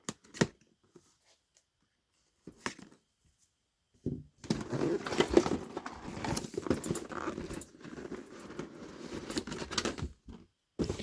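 Cardboard miniatures box being opened and its packed contents handled: a few light knocks, then from about four seconds in several seconds of continuous rustling and scraping with small clicks.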